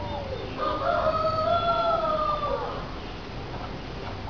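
A rooster crowing once: one long drawn-out call starting about half a second in.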